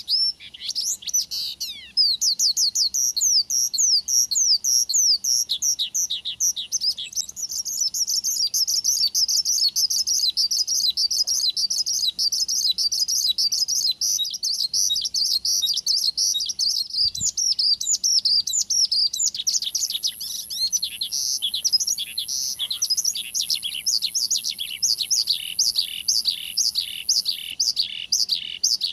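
Horsfield's bush lark (branjangan) singing a long, unbroken song of fast, sweeping whistled notes, settling in the last third into a quicker-spaced series of repeated down-slurred notes. It is a lure recording of vigorous lark song, played to set a caged lark singing.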